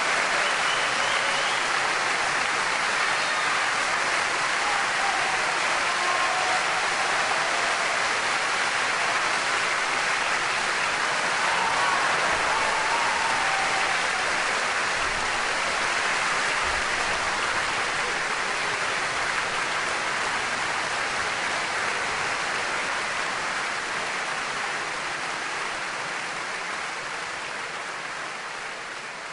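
Audience applauding: a dense, steady ovation with a few faint voices in it, fading away over the last several seconds.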